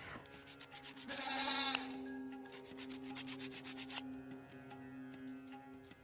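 Rubbing or sanding strokes on a surface, in quick repeated passes, over steady background music. The loudest stroke comes about a second in, and a run of rapid strokes follows near the middle.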